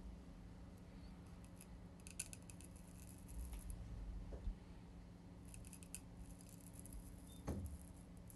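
Straight razor cutting through moustache stubble: a faint, rapid crackle of hairs being sheared, in two short runs a few seconds apart. A soft knock comes near the end.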